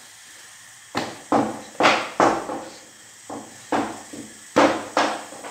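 Bread dough being kneaded by hand on a granite countertop: about eight dull thumps in pairs as the dough is pushed and pressed down against the stone.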